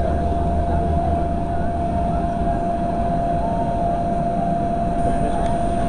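Steady low outdoor rumble with a steady high-pitched tone held throughout.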